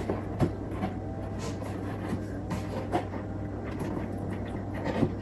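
Soft handling sounds of paper and foam board being pressed and adjusted, a few light taps and rustles, over a steady low room hum.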